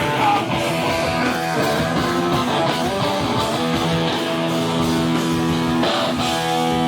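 Live rock band's electric guitar playing through an amplifier, strummed chords settling into one held, ringing chord near the end.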